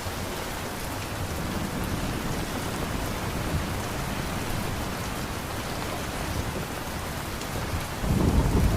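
Steady rain falling, an even hiss. Near the end a deep rumble of thunder sets in suddenly and grows louder.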